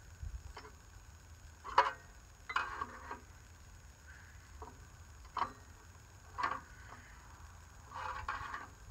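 Scattered clinks and knocks of metal hand tools on a lawn tractor's parts while a part is being worked loose. About a dozen short hits come at uneven spacing, two of them brief rattling clusters, the sharpest about two seconds in.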